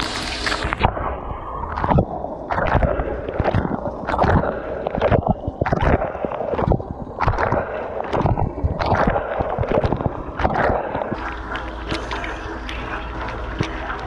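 Water jets from a KitchenAid KDTM604 dishwasher's wash arms splashing irregularly against the stainless tub, racks and camera, heard from inside the tub, over the dishwasher's steady low hum.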